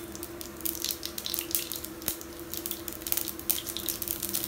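Mustard seeds and a dry red chilli sizzling in hot oil, with quick irregular crackles throughout: the start of a tempering (tadka). A steady hum runs underneath.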